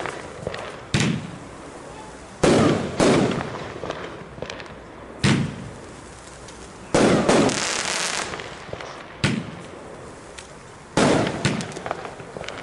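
Funke 'Nightfall' 35-shot 25 mm firework battery firing: about eight sharp bangs roughly one to two seconds apart as the shots launch and break, each trailing off. About seven seconds in, one burst is followed by a longer hiss.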